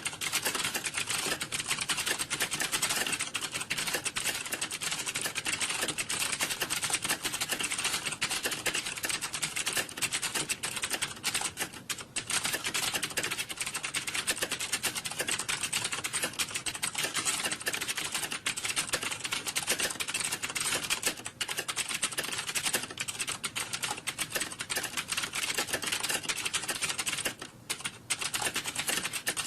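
Computer keyboards being typed on: a dense, continuous clatter of keystrokes, as in a room of many people typing at once, easing briefly about twelve seconds in and again near the end.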